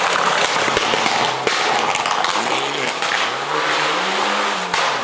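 Rally car's engine driven hard on a gravel stage, the pitch rising and falling through the revs, with a clear rev-up and drop near the end. Sharp cracks and pops sound over it, most of them in the first second and a half.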